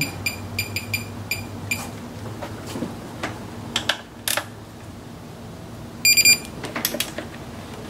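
Electronic beeper of a digital torque wrench: a few short beeps near the start, then scattered clicks as the wrench works a throttle-body bolt. About six seconds in comes one loud, steady beep, the signal that the bolt has reached the set torque of 11 on a first pass toward 22.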